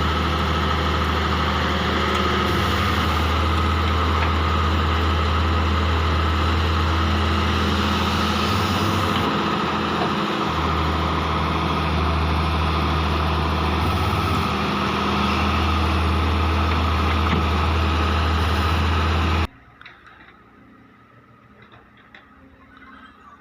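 Hitachi excavator's diesel engine running steadily with a deep hum, then cutting off abruptly near the end, leaving only faint background sound.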